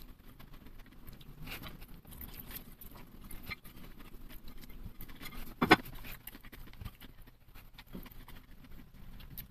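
Close-up eating sounds of fried rice: soft chewing and mouth sounds with small clicks of chopsticks scraping and tapping on a plate, and one sharper click a little over halfway through.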